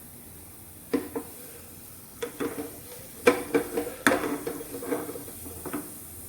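Knocks and clinks on a metal cooking pan as popcorn kernels are handled in it, each leaving a brief ringing tone. A couple come about a second in, then a busier run that is loudest three to four seconds in.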